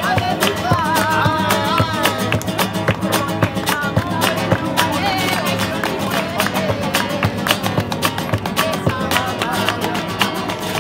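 Live flamenco: an acoustic guitar strummed with sharp rhythmic strokes, hand-clapping (palmas) keeping time, and a voice singing a wavering line in places.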